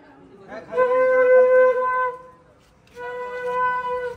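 Conch shell (shankha) blown in two long, steady blasts, the first about a second in and the second near the end, each held for a second or more on one unchanging note.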